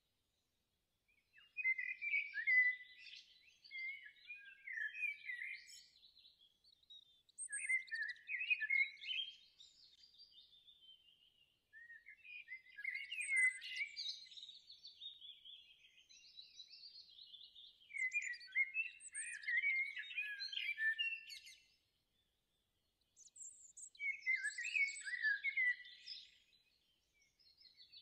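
A small songbird singing: rapid chirps and trills in phrases of a few seconds with short pauses between them.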